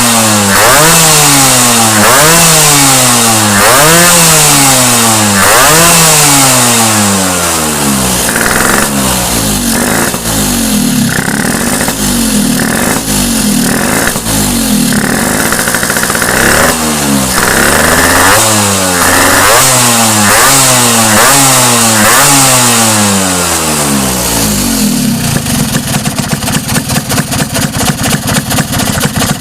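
Vespa PX's single-cylinder two-stroke engine, fitted with a PWK 33 carburettor, revved in repeated blips, each rising and falling within a second or two, quicker and choppier after about eight seconds. Near the end it drops back to an uneven idle.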